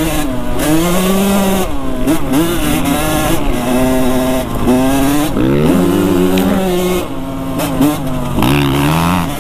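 Dirt bike engine running hard, its pitch climbing and dropping again and again as the throttle is worked.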